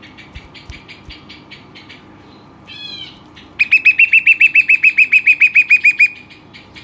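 Rock nuthatch singing: soft rapid chips, a short call about three seconds in, then a loud fast trill of about nine repeated notes a second lasting some two and a half seconds.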